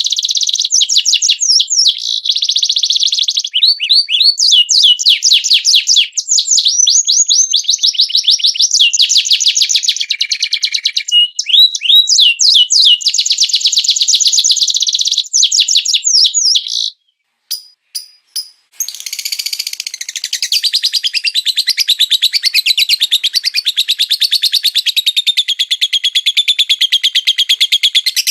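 Songbird singing loud, fast trills and rapid sweeping chatter, broken off briefly about 17 seconds in by a few short clicks, then resuming as a more even, continuous warbling song.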